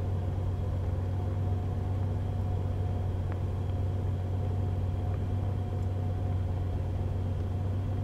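Car engine idling steadily, a low even hum heard from inside the cabin.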